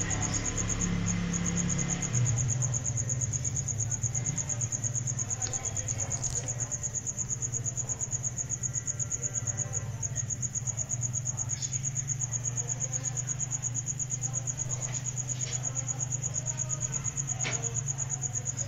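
A cricket trilling steadily in a fast, even pulse, high-pitched, over a low steady hum, with a few faint clicks.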